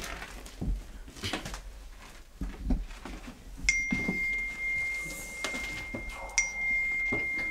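Footsteps and scuffing over a debris-strewn floor, in irregular knocks. About halfway through a steady high-pitched tone starts with a click and holds to the end, with another click partway along.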